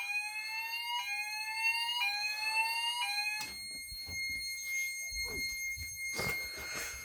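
Fire alarm sounder sounding a rising sweep tone, about one sweep a second, that cuts off about three and a half seconds in as the alarm is silenced. A steady high buzzer tone, the fire alarm panel's buzzer, carries on with a few handling knocks.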